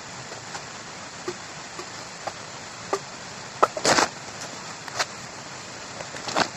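Fresh bamboo shoot being peeled by hand: short cracks and snaps as the husk sheaths are torn away, the loudest cluster just before four seconds in, over a steady hiss.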